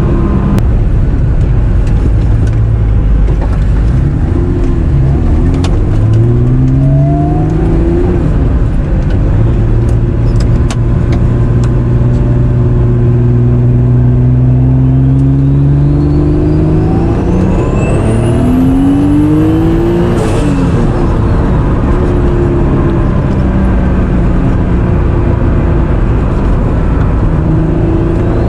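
Turbocharged Honda NSX C30A 3.0 V6 accelerating through several pulls. On the hardest pull a high turbo whistle rises with the revs, then cuts off suddenly about twenty seconds in as the throttle closes and boost is released. After that the engine runs on at lower revs.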